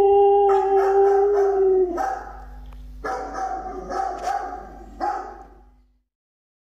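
Siberian husky howling: one long, steady howl that ends about two seconds in, then shorter, rougher howls and barks. The sound cuts off abruptly about six seconds in.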